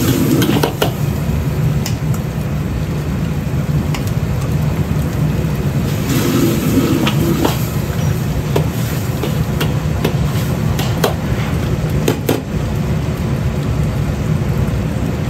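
Commercial wok range running with a steady low rush, while a metal ladle stirs food in a carbon-steel wok with irregular knocks and scrapes against the metal, over sizzling sauce.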